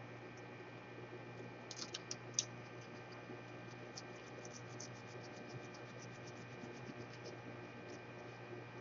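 Small, faint clicks and light scratching from hand tools working on a laptop's parts, with a few sharper clicks about two seconds in and a run of quick soft ticks in the middle, over a steady electrical hum.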